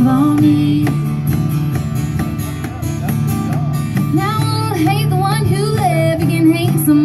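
Acoustic guitars strummed in a live band, with a woman singing. A sung note is held for about the first second, then the guitars carry on alone until the voice comes back about four seconds in with a moving melody.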